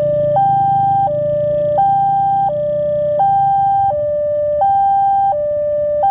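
Railway level-crossing warning alarm sounding a steady electronic two-tone signal, alternating high and low about every 0.7 seconds, as the crossing closes for an approaching train.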